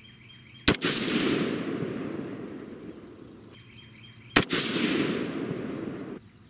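Two rifle shots from an AR-15 chambered in 22 ARC with a muzzle brake, about three and a half seconds apart. Each sharp report is followed by a long echo that fades over about two seconds.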